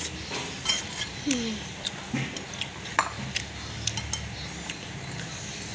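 Cutlery clinking and scraping against a bowl during a meal of spicy noodles: a scatter of short, sharp clicks.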